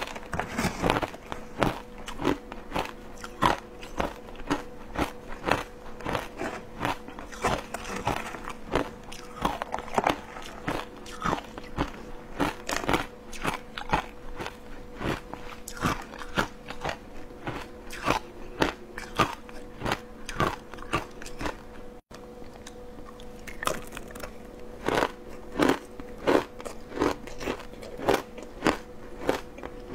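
Close-miked crunching and chewing of frozen matcha shaved ice, a dense, uneven run of crisp crunches.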